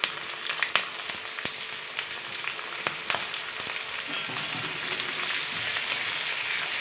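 Green chillies, ginger and curry leaves frying in hot oil for a tempering: a steady sizzle with scattered small pops and crackles.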